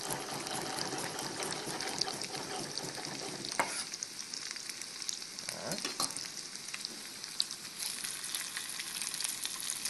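Potato gnocchi and sliced chestnuts sizzling in oil in a hot sauté pan, with light knife taps on a wooden cutting board as garlic is sliced. Near the end the pan is stirred and the sizzle grows brighter.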